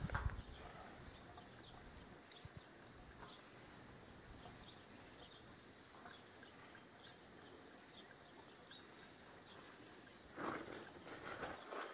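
Faint steady insect chorus, a high continuous drone, with scattered short chirps over it. A brief rustle comes about ten and a half seconds in.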